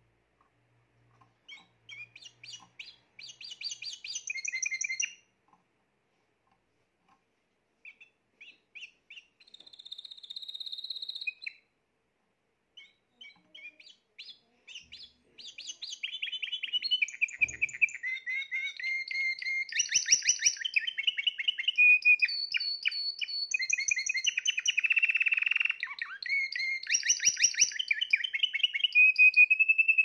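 Spanish Timbrado canary singing. A few short trilled phrases with pauses come first, then from about halfway it breaks into continuous, louder song of rapid rolls and repeated notes.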